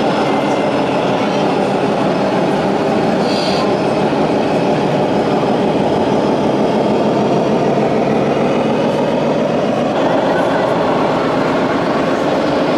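Sound module of a radio-controlled Scania truck model playing a steady, even engine rumble as the truck drives slowly, over the noise of an exhibition hall.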